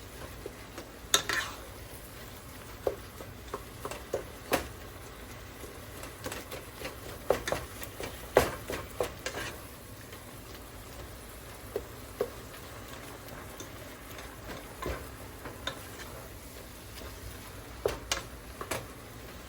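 Ground turkey frying in hot oil in a pot, with a utensil scraping and tapping irregularly against the pot as the meat is broken up into small pieces.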